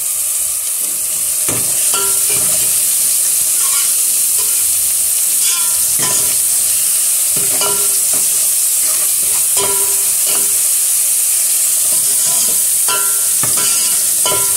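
Diced red onions sizzling in hot oil in an aluminium pot. A metal spoon scrapes and clinks against the pot every second or two as they are stirred.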